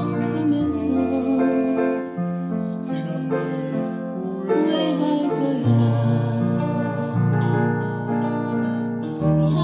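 Digital piano playing a slow ballad, a melody over held chords and low bass notes that change every second or two.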